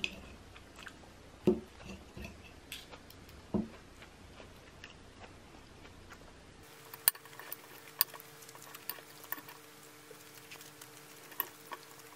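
Metal fork and knife tapping and scraping on a plate while cutting food, in scattered clicks. About halfway through, a faint steady hum comes in under a few sharper clinks.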